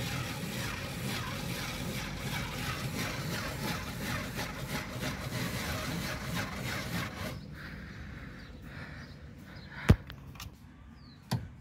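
Power drill with a countersink bit grinding into the head of an aluminium rivet, a steady gritty whir for about seven seconds as the rivet head is drilled off. It is followed by a single sharp knock about ten seconds in and another just before the end.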